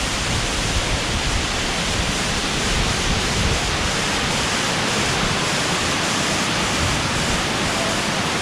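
Steady rush of a large multi-tiered waterfall, water falling and crashing into a pool, heard close up.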